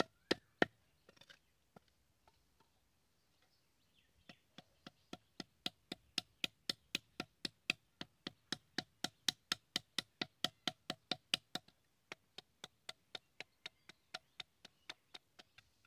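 Curved machete blade chopping into a bamboo strip laid on a wooden stump: quick, even strokes about three a second. A pause of about three seconds comes a second in, then the strokes run on steadily, a little softer near the end.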